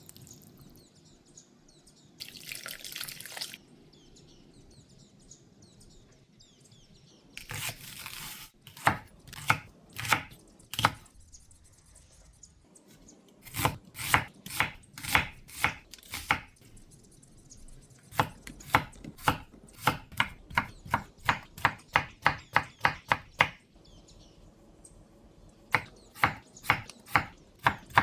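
Kitchen knife chopping vegetables on a cutting board in quick series of sharp strokes, about three a second, after a couple of short rustles near the start.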